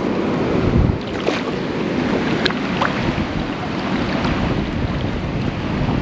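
Steady rush of wind on the microphone mixed with flowing creek water, with a few faint clicks.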